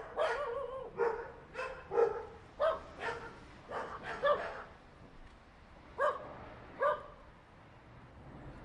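A group of dogs barking in irregular, overlapping volleys, then a lull with two single barks near the end.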